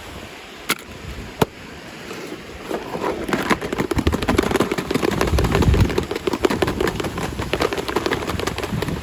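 Two sharp clicks, then from about two and a half seconds in a dense, continuous crackling, the sound of plastic packaging being crinkled and torn open by hand.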